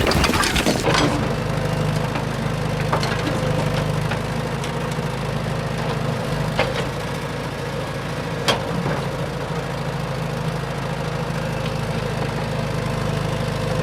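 Engine running steadily at idle, with a few sharp clicks or knocks over it.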